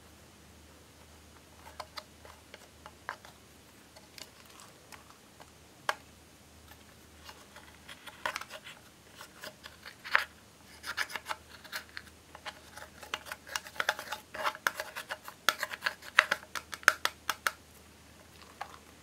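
Pressed eyeshadow in a plastic palette being scraped and crumbled with a thin tool: scattered scratchy clicks at first, then a dense run of scraping and tapping from about eight seconds in that stops a little before the end.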